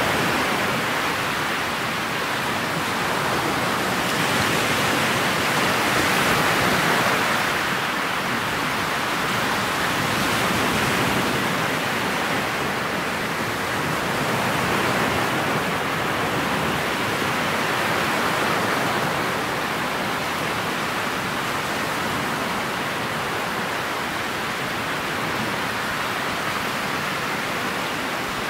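Steady rushing hiss of water and wind past a motorboat's bow as it cruises over choppy lake water, swelling and easing gently every few seconds.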